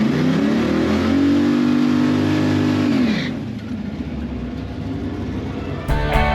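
LS V8 engine in a Ford Maverick revved up over about two seconds, held high for about two seconds, then let back down to a lower steady run. Rock music with guitar begins near the end.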